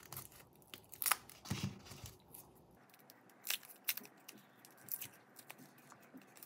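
Dry, papery garlic skin crackling and tearing as it is peeled off the cloves by hand, in faint, irregular crinkles and ticks.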